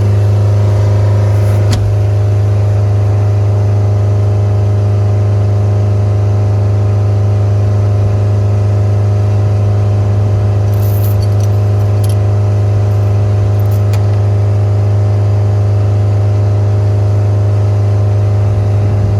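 Skid steer engine running at a steady speed with a strong constant hum, and a few light clatters around the middle.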